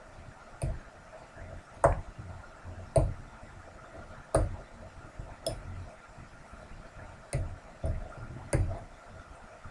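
A metal fork clinking and scraping against a ceramic bowl while eating scrambled eggs: about eight sharp clinks at irregular intervals of roughly a second.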